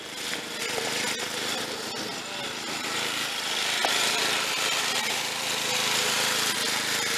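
Snapper 33-inch rear-engine riding mower's engine running steadily as the mower drives past, growing louder as it comes close about four seconds in. The engine runs only on choke.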